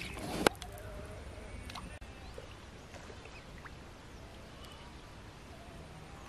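Quiet waterside ambience: steady low background noise with faint distant bird calls, and a single sharp knock about half a second in.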